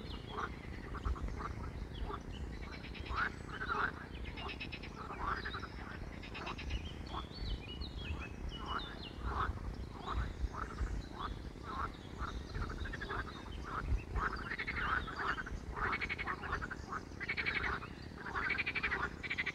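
A chorus of frogs croaking from the ponds: many short, rattling calls overlapping throughout, with a low wind rumble underneath.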